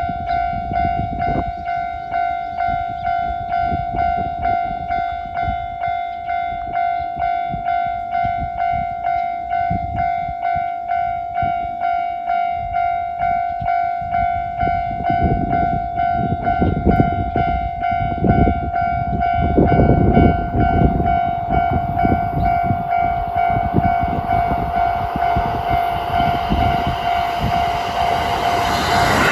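Level-crossing warning bell ringing in an even repeating pulse, about two dings a second, signalling that a train is coming. From about halfway through, the rumble of an approaching Kintetsu train grows beneath it and is loudest near the end.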